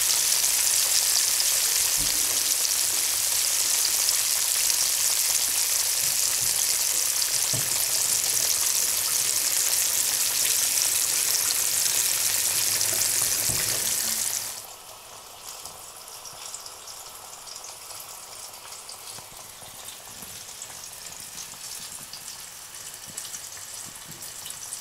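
Flour-dredged carp pieces sizzling as they fry in hot oil in a pan. About two-thirds of the way through the sizzle drops suddenly to a much quieter level and carries on.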